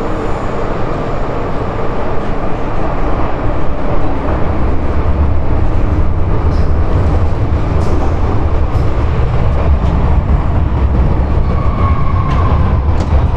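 MTR M-train electric multiple unit running along the line: a steady, loud rumble of wheels and traction gear that swells after a few seconds, with a few sharp clicks and a short higher tone near the end.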